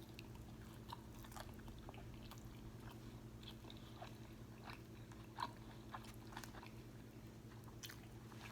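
Close-miked chewing of a crispy fried flounder sandwich: faint scattered crunches and wet mouth clicks, one a little louder about five seconds in, over a steady low hum.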